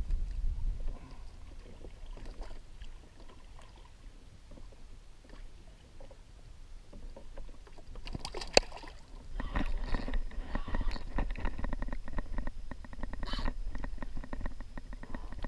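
Spinning reel being cranked to bring in a hooked fish: after a single sharp click, a fast, dense run of fine clicking starts about two-thirds of the way in and keeps on. A low rumble of wind and water lies underneath.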